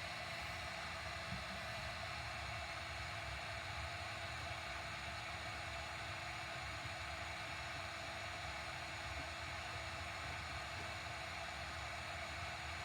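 Steady fan-like whir and hiss, even throughout, with a faint steady hum underneath.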